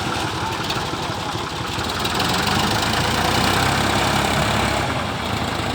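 Old Ford farm tractor's engine running steadily, swelling a little louder in the middle and then easing back.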